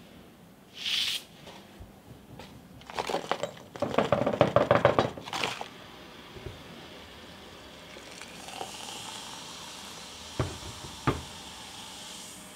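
Baking soda poured from a cardboard box into a glass jar of small rusty steel parts: a couple of seconds of dense gritty rattling. Then liquid is poured into the jar as a steady hiss, with two sharp clinks near the end.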